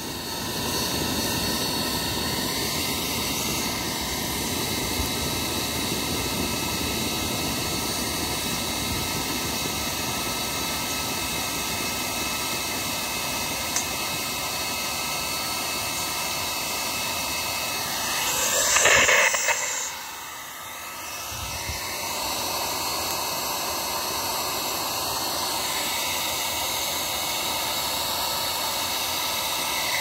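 Gutted hair dryer's fan, its 12 V DC motor run from an 18 V laptop power supply, running steadily and blowing air through a foil-wrapped duct into the base of a charcoal chimney starter to light the coals. A brief louder rush comes about two-thirds of the way through.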